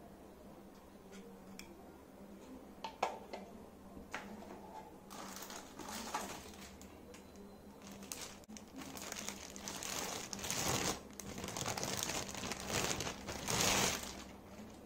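Clear plastic bag crinkling and rustling as a cordless drill is pulled out of it, in bursts that grow louder toward the end. A few light plastic clicks of handling come before it.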